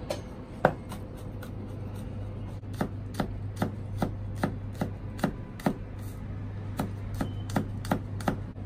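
Cleaver chopping spring onions on a wooden cutting board: one hard knock under a second in, then a steady run of chops, about two or three a second.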